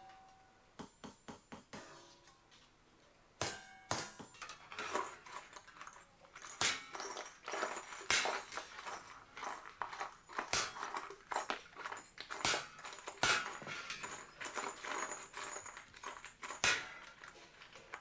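Small hammer tapping a steel chasing punch (tagane) into a metal sheet, embossing a pattern. Runs of quick light taps come first, then a short pause, then steady tapping with a louder strike every second or two.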